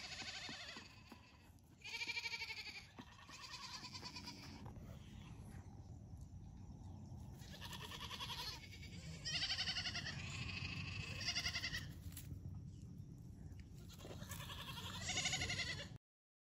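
Goat kids bleating repeatedly: high, quavering bleats of about a second each, with short gaps between them.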